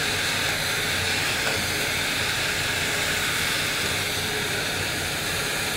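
Steady machinery noise of a ship's engineering space: an even hiss with a faint low hum and no distinct events.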